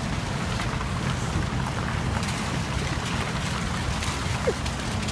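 Steady low rumble of street traffic on a wet road.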